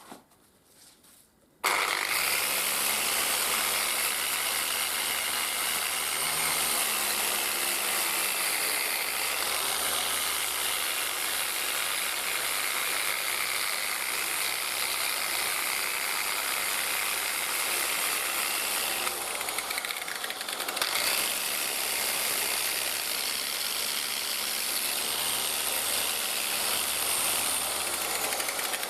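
A power tool starts abruptly about two seconds in and runs steadily against the metal of the lamp post, cleaning it back, easing off briefly around two-thirds of the way through.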